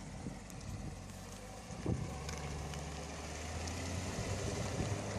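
Chevrolet C7 Corvette Stingray's 6.2-litre V8 running at low speed as the car rolls past, a steady low engine note that grows slightly louder toward the end. A short thump comes just before two seconds in.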